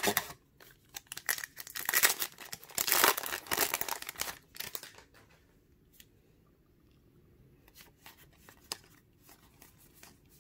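Foil wrapper of a hockey trading-card pack being torn open and crinkled, loudest a few seconds in. After that it goes quiet apart from a few faint clicks of the cards being handled.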